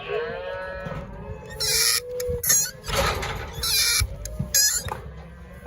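Cattle bawling in a working pen, with several loud, harsh bursts of noise from about one and a half to nearly five seconds in.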